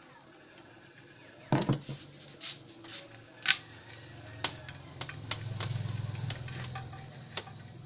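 Clicks and knocks of a CRT television's plastic deflection yoke being handled and worked loose on the picture tube's neck, with a low hum swelling in the middle.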